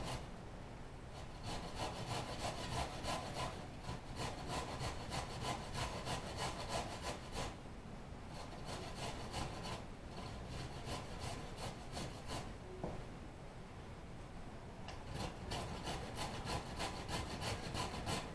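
Vegetables being rubbed back and forth across a hand grater: a steady run of rasping strokes with a few short pauses.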